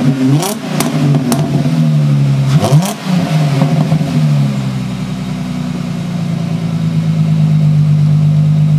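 The 3.5 L high-output V6 of a 2004 Dodge Intrepid, breathing through a Magnaflow single-in, dual-out transverse muffler with 3-inch tips and the resonator deleted, revved briefly twice and then settling into a steady idle.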